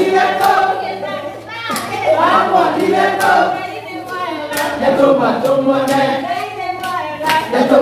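A group of people singing together, with handclaps among the voices.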